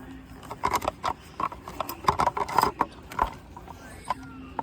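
Hard plastic prop parts knocking and clicking irregularly as a leg piece is handled and pushed onto its pole and snap lock.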